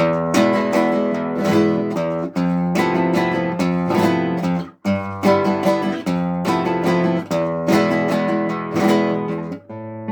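Acoustic guitar playing a Spanish-style piece: quick strummed chords mixed with plucked notes, with a brief break about halfway through.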